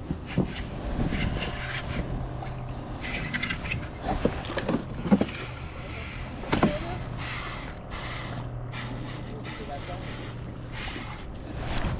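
Fishing reel being wound in with the rod bent under load, its gears whirring steadily, with several sharp knocks, the loudest about five and six and a half seconds in.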